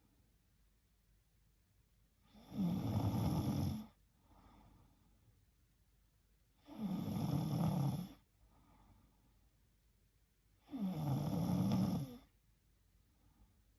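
A sleeping woman snoring: three snores about four seconds apart, each lasting a little over a second, with faint breathing between them.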